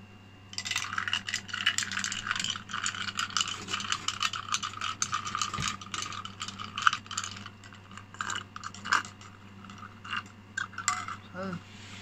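Ice cubes clinking and rattling against the sides of a glass of iced coffee as it is swirled and stirred: a dense, quick run of clinks starting about half a second in, then sparser single clinks for the last few seconds as a straw stirs the ice.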